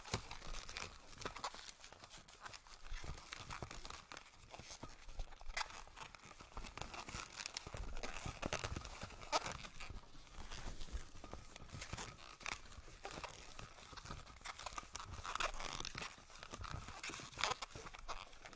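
Long 260 latex modelling balloons squeaking and rubbing against each other as they are twisted and woven by hand: an irregular run of short, scratchy squeaks and crinkles.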